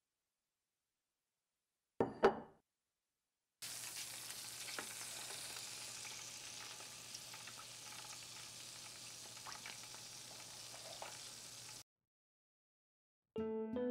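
Whole roast chicken sizzling on an oven rack: a steady hiss with scattered small crackles that cuts off abruptly. Shortly before it, a brief sharp clatter as a wooden tray with a ceramic bowl is set down on a wooden table.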